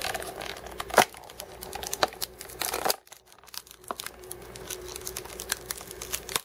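Tape being peeled off a clear plastic deli cup and its snap-on lid worked loose: a run of crinkles, crackles and sharp clicks, with a loud snap about a second in and a brief crackle near the middle.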